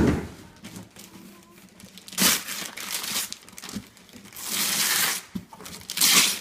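Christmas wrapping paper being torn and crumpled as a present is unwrapped. The paper rustles in three bursts: a short one about two seconds in, a longer one past the middle, and a loud one near the end. A dull thump comes at the very start.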